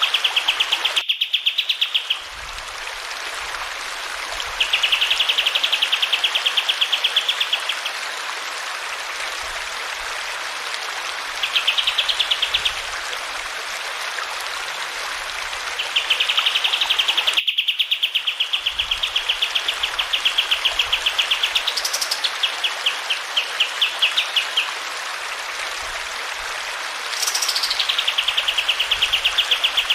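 A kapas tembak songbird sings rapid, high trilled phrases, each lasting a second to several seconds, two of them opening with a steep whistle that sweeps up and falls back. Under the song runs the steady hiss of flowing water, with a brief break about a second in and again around seventeen seconds.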